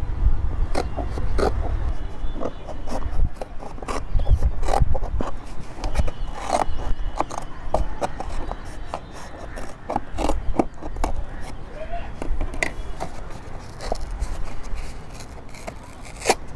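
Scissors snipping through a paperboard juice carton, a run of irregular cuts with the carton crinkling in the hand, and one sharper crack near the end.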